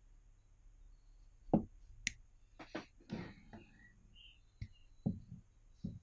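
Leatherman Surge stainless steel multitool being handled: a handful of scattered light metal clicks and knocks as the tool is turned over and a small screwdriver is pulled out of its handle.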